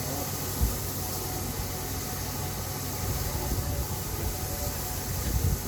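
Peppercorn A1 Pacific steam locomotive standing, with a steady hiss of steam over a low hum and two brief low thumps, one early and one near the end.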